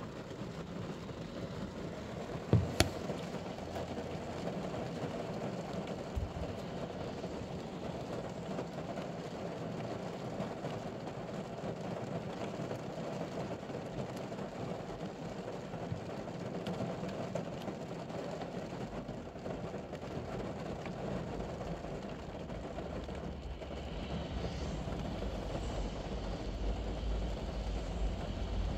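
Steady rain on a ute's roof and windscreen, heard from inside the cab. Two sharp clicks come close together about three seconds in, and a low rumble builds near the end.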